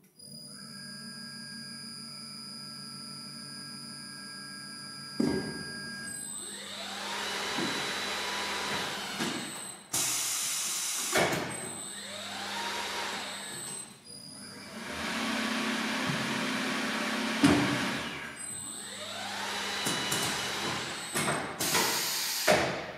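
Automatic tyre changer (Mondolfo Ferro Aquila Tornado) at work mounting a tyre. A steady machine hum gives way to the turntable drive spinning up three times, each with a rising whine. Two loud bursts of air hiss come about ten seconds in and near the end, and there is a sharp knock between them.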